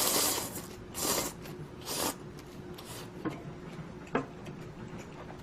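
A person eating instant budae-jjigae noodles into the microphone: three or four short noisy slurps in the first three seconds, then two light clicks, likely utensils or chewing.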